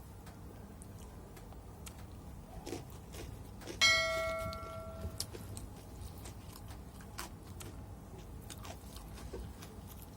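Close-miked eating sounds: soft chewing and small clicks of someone eating fried chicken. About four seconds in, one loud ringing clink, like a hard dish or utensil being struck, rings on for about a second and a half.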